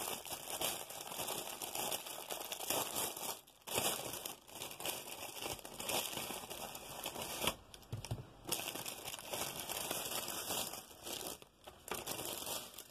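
Clear plastic packaging bag crinkling as it is handled and pulled open, with the small packets of diamond-painting drills inside rustling. It pauses briefly twice, a few seconds in and about eight seconds in.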